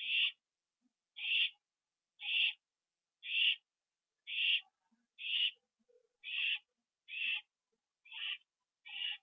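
Barn owl in a nest box giving a repeated rasping, hiss-like call, about one call a second, each lasting about half a second.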